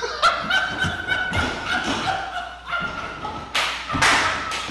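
Men laughing hysterically with high-pitched shrieks and yelps, plus thumps as they flail about in their chairs.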